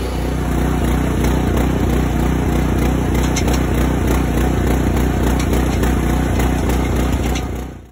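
Engine-driven hydraulics running steadily as the chains of a live log deck carry a log, with a regular low pulsing and a few light clicks about three seconds in. The sound cuts off suddenly at the very end.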